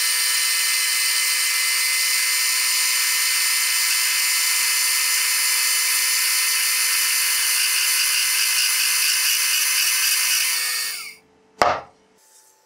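Small metal lathe running steadily, its cutting tool skimming paint off the steel-and-aluminium rotor of an induction motor, with a high hiss over a steady whine. It stops abruptly about 11 seconds in, and a single sharp knock follows.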